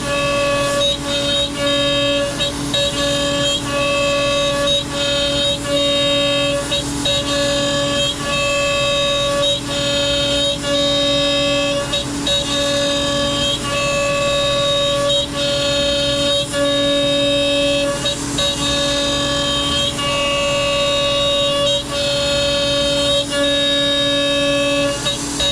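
CNC router spindle at about 17,000 rpm with its bit cutting ash, a steady high-pitched squeal with several tones that dips briefly every second or two as the cut goes on. The squeal comes from the spindle running too fast for a good chip.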